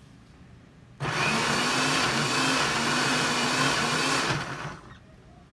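Countertop blender motor switching on about a second in and running steadily for about three and a half seconds while it purées dried red chillies, onion, spices and vinegar into a sauce, then winding down near the end.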